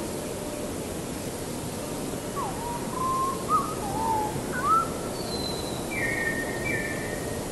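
Bird calling: a run of short whistled notes that glide up and down, then a pair of higher, harsher notes near the end, over a steady background hiss.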